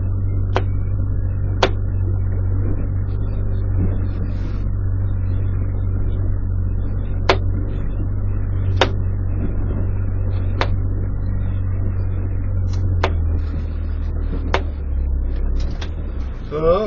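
A steady low rumble with seven sharp clicks or knocks at uneven spacing. The rumble eases off near the end.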